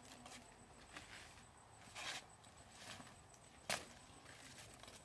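A single sharp knock about three and a half seconds in, after a brief rustling scrape about two seconds in.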